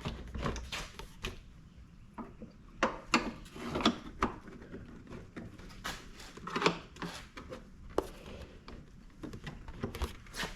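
Plastic clicks, knocks and rubbing as a GMT800 pickup's headlight assembly is slid back into its mounting.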